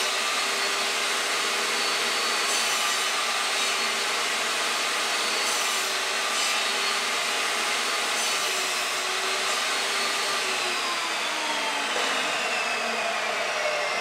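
Chicago Electric benchtop table saw running steadily while trimming a small block of wood. In the last few seconds the motor's pitch drops steadily.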